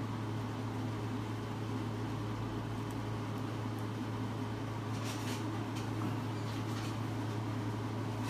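A steady low electrical or fan-like hum in a small room, with a few faint high ticks about five and seven seconds in.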